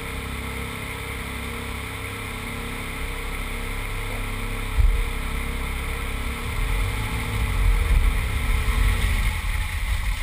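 A 2001 Subaru Impreza 2.5RS's flat-four engine idling steadily, heard through a camera mounted on the outside of the car. About halfway through, a heavy low rumble of wind buffeting on the microphone builds up and gets louder, with a sudden low thump near the middle.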